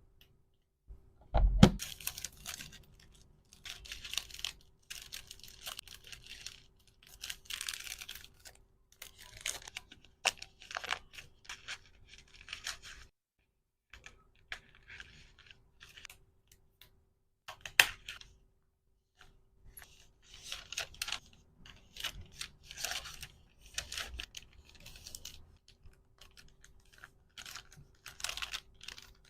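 Hands handling packaging materials: plastic or paper rustling and tearing in short, irregular bursts, with sharp clicks, the loudest a little under two seconds in and another around eighteen seconds in.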